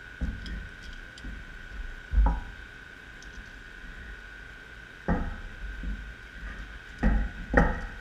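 Steel wrenches knocking and clanking against a metal high-pressure hose fitting and the table as they are handled and set on the fitting: a sharp knock about two seconds in, another about five seconds in, and two close together near the end, with small clicks between. A steady high-pitched tone runs underneath.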